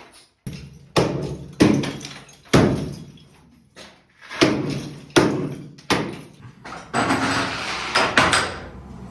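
Hammer strikes knocking old ceramic tiles off, roughly one blow a second, each followed by the rattle of breaking pieces. Near the end it turns into a denser stretch of scraping and clattering.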